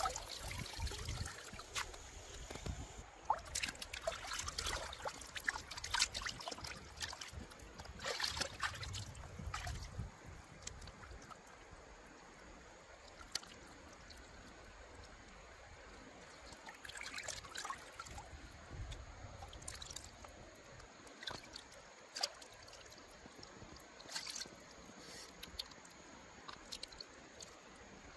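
Water splashing and trickling, with irregular clusters of short splashes and knocks, busiest in the first third and again a few times later.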